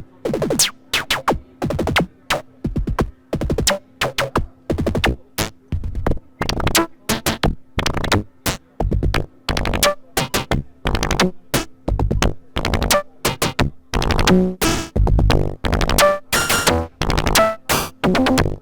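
Dreadbox Dysmetria synthesizer playing a sequenced rhythm of short, sharp electronic percussive hits, a few per second over a faint steady drone. The pattern grows busier, with longer pitched notes, over the last few seconds.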